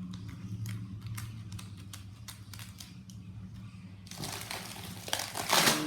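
Laptop packaging being handled during unboxing: scattered light clicks and taps, then from about four seconds in louder rustling and crinkling of the packaging, loudest near the end.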